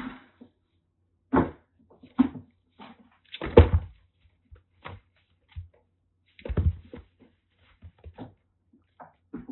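Kittens romping, making irregular thumps and scuffling knocks in a small room, the loudest cluster about three and a half seconds in.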